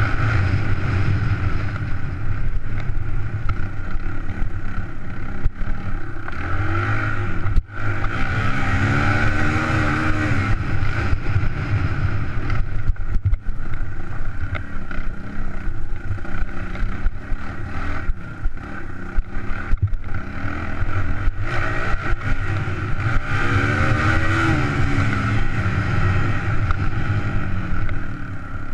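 Suzuki DR200's single-cylinder four-stroke engine pulling the bike over a rough dirt trail. It revs up and back down twice as the throttle is worked, with occasional knocks.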